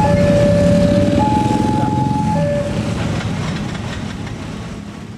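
Wantech level-crossing alarm sounding its two alternating tones, low then high, each held about a second, and stopping about halfway through. Underneath, motorbike and car engines run as traffic crosses the tracks, all fading toward the end.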